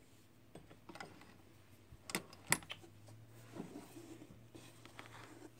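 Faint scattered clicks and light rustling of fabric and sewing-machine parts being handled, with the machine stopped; the sharpest click comes about two and a half seconds in.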